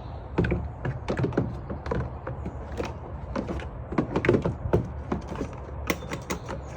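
Plastic air intake box being worked back into the engine bay, knocking and clunking against the surrounding parts in a run of irregular taps and thunks.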